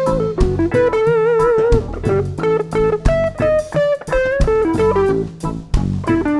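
Guitar solo over a live band's reggae groove of bass and drum kit. It plays single-note phrases, with one note held and bent in a wide vibrato about a second in.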